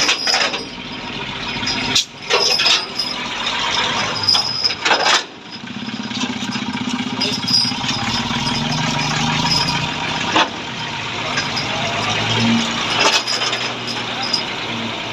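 A few sharp metallic clinks, like chain links knocking, in the first five seconds, then a tow truck's engine running steadily from about five seconds in.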